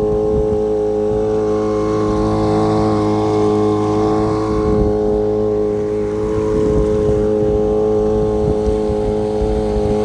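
Boat motor running steadily at full throttle with a constant, unchanging pitch. It is stuck wide open because the throttle linkage has broken, so there is no speed control.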